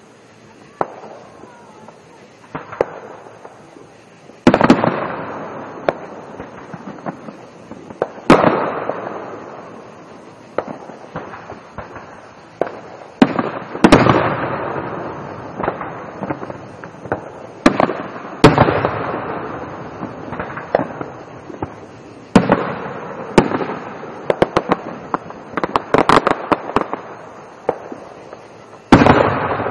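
Aerial fireworks shells bursting: a series of sharp booms, each trailing off in a long rolling echo, with smaller crackles in between and a quicker run of bursts near the end.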